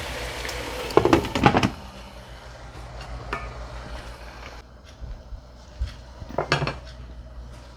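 Cooking pot being handled: a lid and utensil clatter against it in a quick cluster about a second in and again near the end, over the sizzle of long beans frying, which drops away suddenly partway through.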